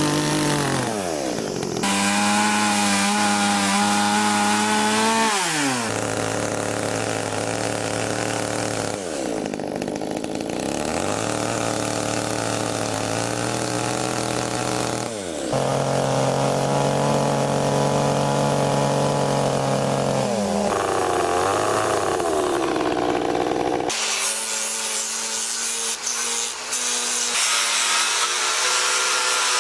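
Chainsaw engine at high revs cutting into wood for chainsaw carving. The throttle drops and picks up again several times. In the last few seconds the saw gives way to a steadier, higher machine whine.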